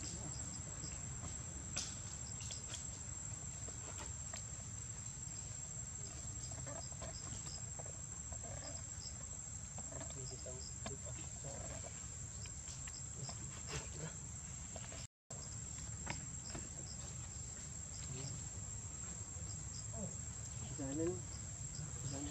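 Insects trilling in one steady high tone over a low, steady outdoor rumble, with a few faint short chirps. The sound cuts out completely for a moment about fifteen seconds in.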